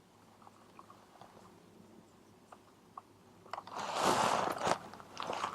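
Clothing-mic noise: a clip-on microphone rubbing against fabric, first faint scattered ticks, then about three and a half seconds in a loud crackling rustle lasting about a second before it eases.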